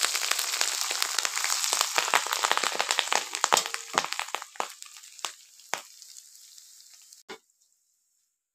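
Hot ghee and fried onions sizzling and crackling on freshly cooked rice just after the tarka is poured over it. The dense crackle thins out to scattered pops over several seconds and dies away.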